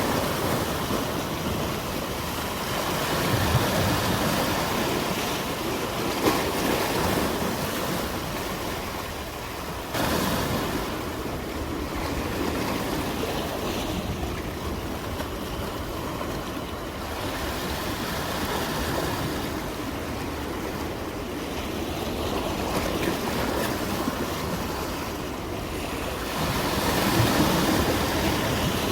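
Sea waves breaking and washing on the shore, a continuous surf that swells and ebbs, with a sudden rise in level about ten seconds in.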